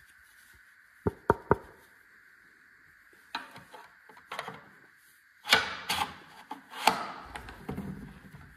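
Hard plastic clicks and knocks as a bug zapper's plastic collection tray is handled and slid into the lamp's base: three quick sharp clicks about a second in, then scattered knocks and scrapes. A steady faint high hum runs underneath.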